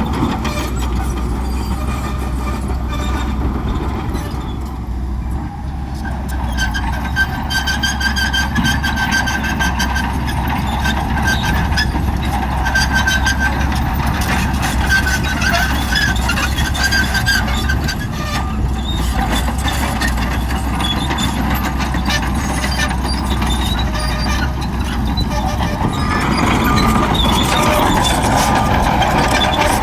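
Shantui crawler bulldozer at work: its diesel engine runs steadily under load while the steel tracks clatter, with an intermittent high squeal from the running gear.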